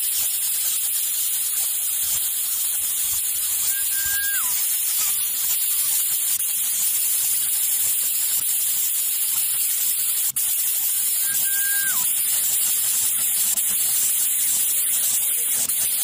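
Loud, steady high hiss throughout. Twice, about four seconds in and again near twelve seconds, a short whistled note holds level and then drops away in pitch.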